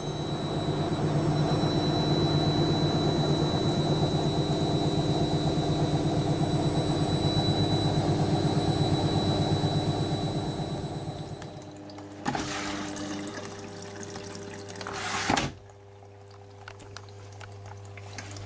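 Panasonic front-loading washing machine running with water swishing in the turning drum, a steady motor whine and a pulsing beat. The running dies away about eleven seconds in. Then there is a click, a short louder rush, and a low hum.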